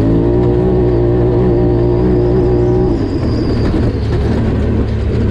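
Polaris RZR Turbo 1000 side-by-side's turbocharged twin-cylinder engine running under way, its note climbing briefly and then holding steady. About three seconds in the steady note breaks off into a rougher, lower rumble.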